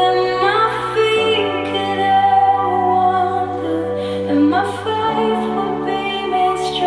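Recorded song playing: a woman singing a slow melody over sustained chords, the bass note changing about a second in and again near five seconds in.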